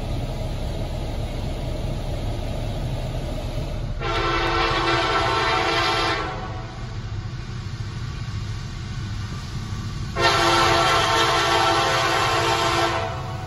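CSX freight locomotive's air horn sounding two long blasts: the first about four seconds in, lasting about two seconds, the second about ten seconds in and a little longer. A steady low rumble runs underneath.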